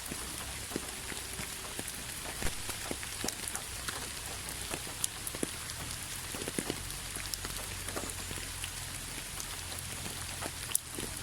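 Rain falling steadily: a soft hiss with many scattered drops tapping on a surface, a few of them louder, over a low steady hum.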